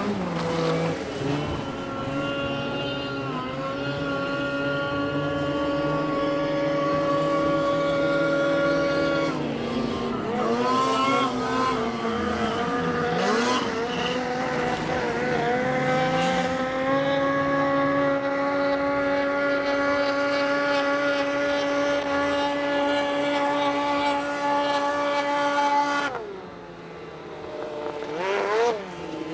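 Snowmobile engine running at high, steady revs, with the pitch dipping and climbing back a few times in the middle. About 26 s in the revs drop off sharply, followed by a short rev near the end.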